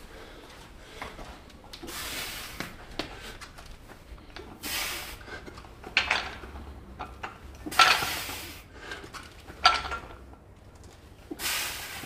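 A weightlifter's forceful breaths at a barbell, one hissing breath about every three seconds, with a few sharp metal clinks of the bar and weight plates.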